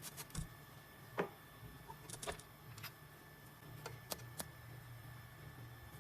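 A few scattered, light clicks and taps, most in the first half, over a faint steady hum: small handling sounds at the key cutting machine.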